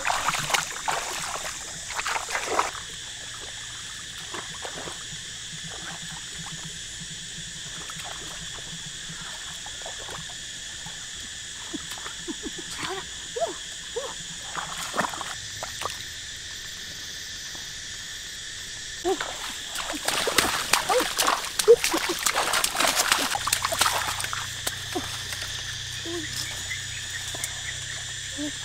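Splashing and sloshing of feet and hands in shallow paddy water, in a burst at the start and again about two-thirds of the way through, over a steady high insect chorus.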